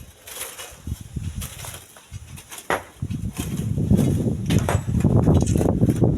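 Strong wind buffeting the microphone, a gusty rumble that grows much louder about three seconds in, with scattered short crackles.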